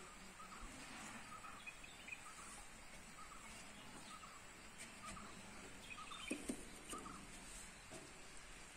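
Faint outdoor background noise with a bird's short chirps repeating about twice a second, and a couple of soft knocks about six seconds in.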